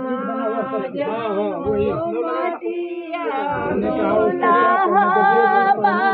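Women's voices singing a dehati folk song together, unaccompanied: a ritual song sung at the planting of the harish bamboo for a wedding.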